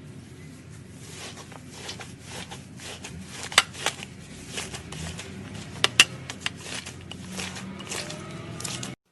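Slime being squeezed and poked by hand: a run of crackles with sharp pops and clicks, the loudest a pair close together about six seconds in. The sound cuts off abruptly near the end.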